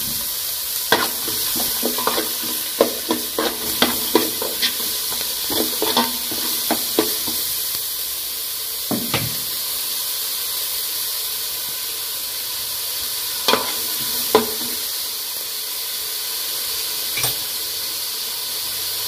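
Chopped red onions frying in hot oil in an aluminium pot: a steady sizzle with sharp crackling pops, thick in the first several seconds and scattered after.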